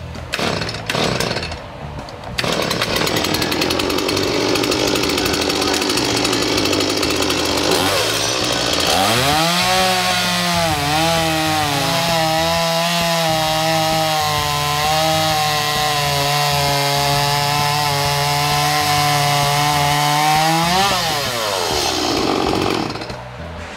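Stihl two-stroke chainsaw running at throttle while cutting a log. A rough, noisy stretch gives way about nine seconds in to an engine pitch that climbs and holds high and steady, then drops off a few seconds before the end.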